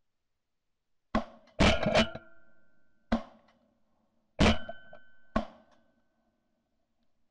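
A volley of about six shotgun shots in roughly four seconds at a flock of ducks overhead, some shots followed by a short ringing tone.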